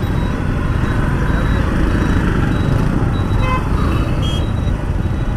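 Suzuki Gixxer SF motorcycle riding in city traffic: engine running under a steady rush of wind on the microphone, with brief horn beeps from the traffic about three and a half seconds in.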